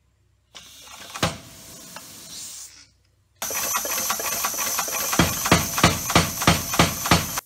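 Pneumatic power hammer running: a steady hiss of compressed air through its valves with a rapid, even clacking of the ram cycling, about three strokes a second, strongest over the last couple of seconds. Before that, a single sharp click about a second in.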